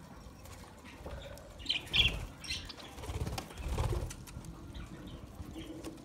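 Budgerigars' wings flapping as several fly down to land, in bursts about two seconds in and again between three and four seconds, with a few short high chirps.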